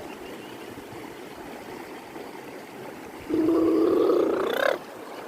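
Running river water, then about three seconds in a long, loud wordless yell from a voice, held for about a second and a half and rising in pitch at the end.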